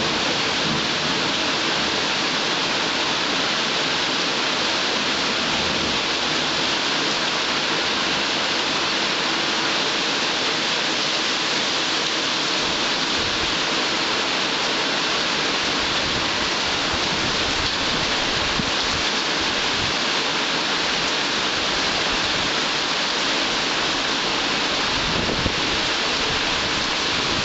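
Heavy rain falling steadily during a thunderstorm, a dense even hiss, with a faint low rumble of thunder near the end.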